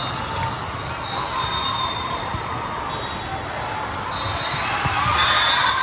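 Sounds of a volleyball rally in a large hall: the ball struck several times, sneakers squeaking on the court, and players calling out over background crowd chatter, swelling louder about five seconds in.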